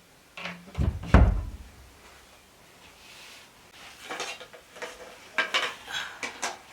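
Cooking pots and utensils being handled: a heavy knock about a second in, then a run of clinks and clatters.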